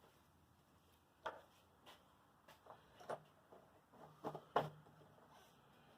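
Faint handling noises on the machine: a scattered series of light clicks and knocks, the loudest about four and a half seconds in.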